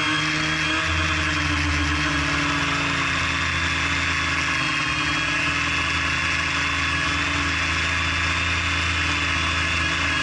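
Quadcopter's electric motors and propellers heard from the onboard camera, a steady whine of several tones over a low hum, as the craft descends on a dying battery.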